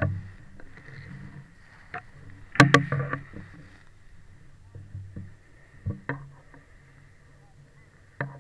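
Handling noise on a chest-worn action camera: rustling with a low rumble, broken by sharp knocks. The loudest cluster of knocks comes about two and a half to three seconds in, with more around six seconds and just before the end.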